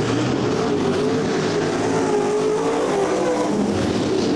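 A field of winged dirt-track sprint cars racing, their V8 engines running hard at full race pace, the pitch rising and falling as they lift and get back on the throttle through the turns.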